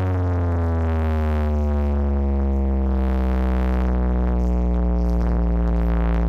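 Electronic dance music: one long synthesizer note gliding slowly down in pitch over a steady, deep held bass.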